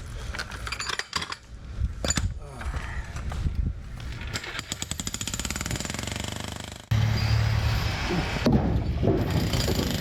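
Jackhammer breaking up old concrete: rapid, even hammering. It cuts off suddenly about seven seconds in, and a steady low engine hum follows.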